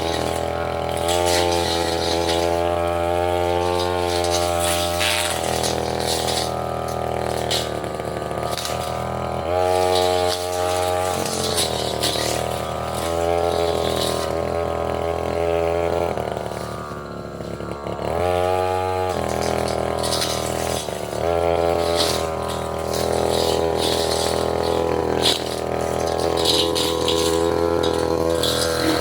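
Tasco 33 Pro brush cutter's engine running under load while cutting small saplings and roots, its speed rising and falling. It revs up in spells of a few seconds, and dips briefly about seventeen seconds in.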